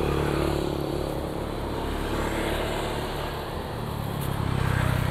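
Yamaha WR155R single-cylinder motorcycle engine idling steadily, getting a little louder near the end.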